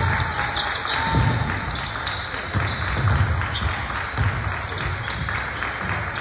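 Basketball being dribbled on a gym floor, a low bounce about once a second, with short high sneaker squeaks and voices in the background.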